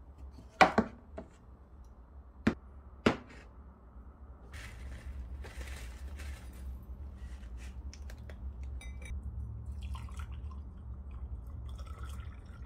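Three sharp knocks or clinks in the first three seconds, then soft handling and rustling noises with a few light clinks, over a low steady hum.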